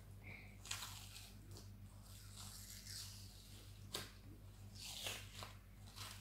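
Faint handling sounds as a rubber balloon mould is pulled and torn away from set polyurethane foam: a few short, soft rips and crackles, the clearest about four seconds in.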